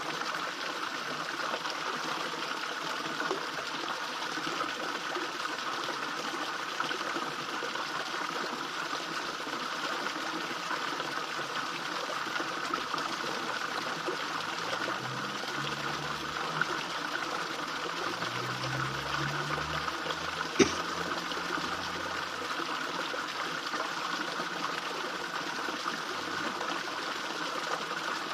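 Small fish pond waterfall, water trickling and splashing steadily into the pond. A single sharp click about two-thirds of the way through, and a faint low hum in the middle for a few seconds.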